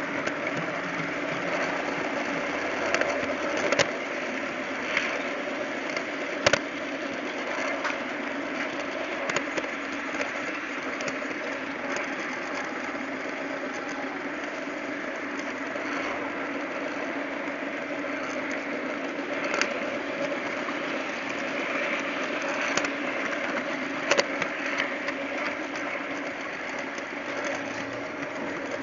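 TT-scale model train running along its track, heard from a camera riding on the train: a steady mechanical whirring of motor and wheels on rail, with a few short sharp clicks along the way.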